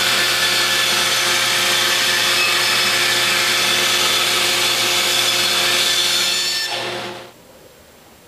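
Bandsaw cutting through a thick laminated wood propeller blank: a steady sawing noise over a constant motor hum. It stops about seven seconds in.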